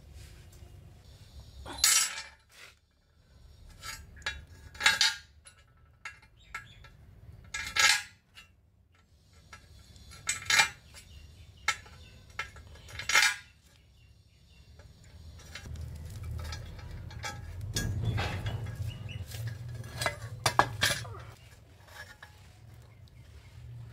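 Short steel rod pieces clinking against a rusty square steel tube as they are fitted into its drilled holes: separate sharp metallic clinks every few seconds, with a low rumble rising in the second half.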